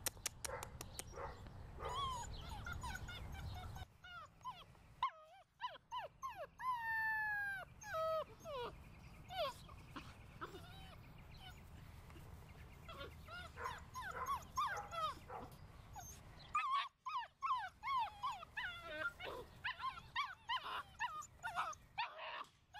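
Seven-week-old German Shorthaired Pointer puppies whining and yipping in repeated bursts of high cries that rise and fall, some of them long drawn-out whines.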